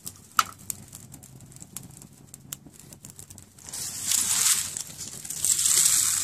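Dry leaves rustling and crunching as they are gathered and balled up by hand, in two spells starting about four seconds in, after a few light clicks and taps.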